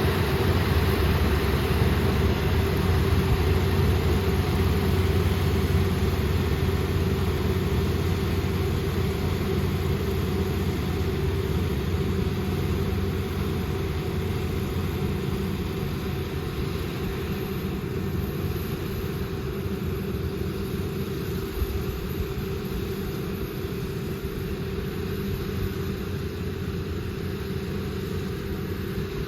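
Rice combine harvester running steadily: a continuous low engine drone with a steady whine, a little louder in the first several seconds.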